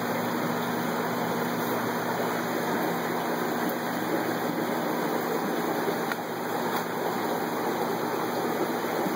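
Aquarium air stones bubbling in a steady rush of fizzing water, with a low steady hum underneath.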